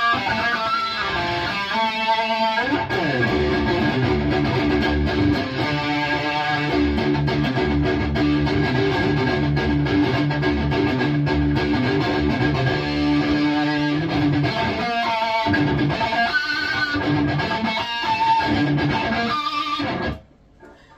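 High-gain distorted electric guitar through a Bogner Uberschall preamp with sag at zero and no effects, played as a lead: held notes and a sliding run over low riffing. It stops suddenly about 20 seconds in.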